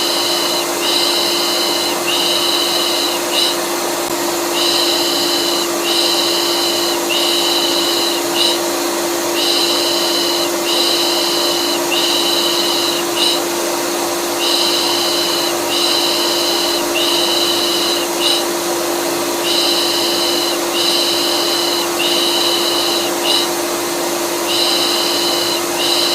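Vacuum cleaner motor running with a steady hum, overlaid with rhythmic shushing ('shh shh') in sets of three, repeating about every five seconds: a looped soothing sound for calming a colicky baby.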